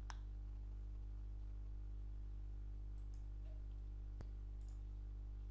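Steady low hum under a few faint computer mouse clicks, the first right at the start and two more a few seconds in.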